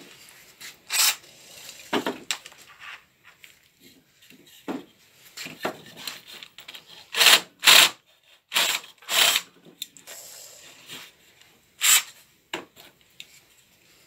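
Makita cordless drill boring a 25 mm hole through a wooden board in short bursts, the bit scraping through the wood with pauses between bursts; the loudest bursts come a little past halfway and again near the end.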